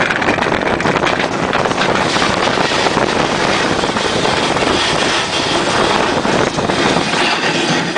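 Bobsleigh running at speed down an ice track, heard from inside the sled: a loud, steady rushing noise with constant small rattles from the runners on the ice.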